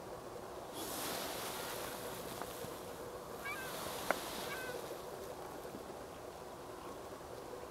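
Wind rushing over open ground, swelling about a second in and easing off later, with a few faint short bird chirps around the middle and one sharp click.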